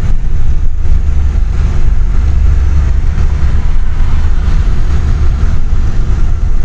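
Car driving along a road, heard from inside the cabin: a loud, steady low rumble of road and engine noise.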